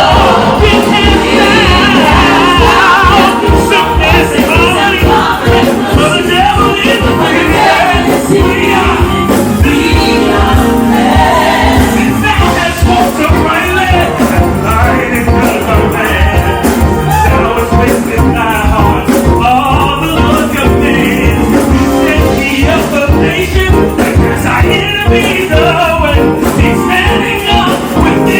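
Live gospel music: singers with a band playing a medley, over a steady beat.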